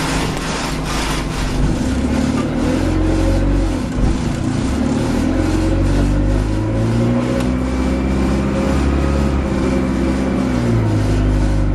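Alexander Dennis Enviro200 Dart bus engine pulling under load, its pitch rising and dropping back several times through the gear changes, with a loud regular ticking about twice a second.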